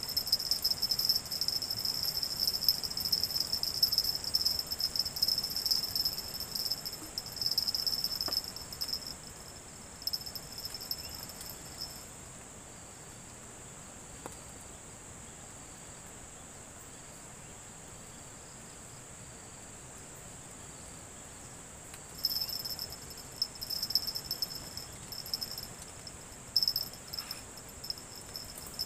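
Insects trilling in a high-pitched, pulsing chorus. It stops about twelve seconds in and starts again about ten seconds later, over a steady high whine and a faint hiss.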